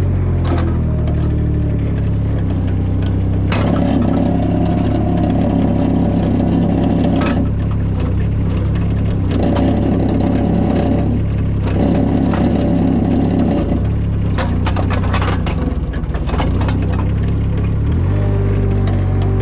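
Compact loader's engine running steadily, revving up for several stretches of a few seconds each as the machine is driven. There is a cluster of knocks and rattles in the second half.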